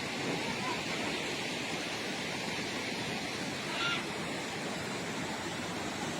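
Steady rushing of floodwater from a river in monsoon spate.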